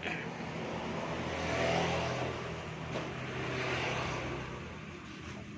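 An engine running steadily, its sound swelling in loudness about two seconds in and again about four seconds in.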